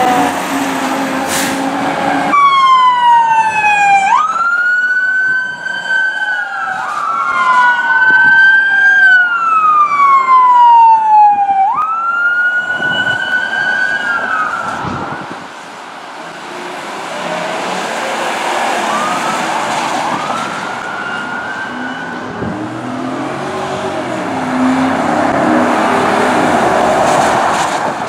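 Emergency vehicle sirens. A brief falling siren tail, then an electronic police siren that starts with a quick sweep and settles into a slow wail, rising and falling every two to three seconds. It grows fainter in the second half under a rising rush of road noise near the end.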